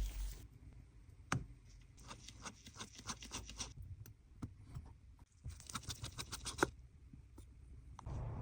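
Small hand tools scratching, scraping and clicking against a phone during repair work. The strokes come in two runs of quick scratches, with a sharp click about a second in.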